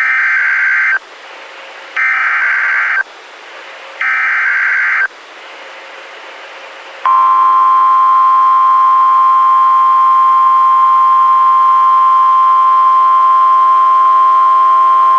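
Emergency Alert System SAME header: three one-second bursts of screeching digital data tones, two seconds apart. Then, about seven seconds in, the steady, loud attention tone begins and holds, announcing the severe thunderstorm warning that follows.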